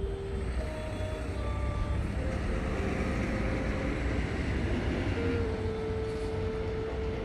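Road traffic noise: a steady low rumble that swells as a vehicle passes around the middle, with a few soft, long-held musical notes above it.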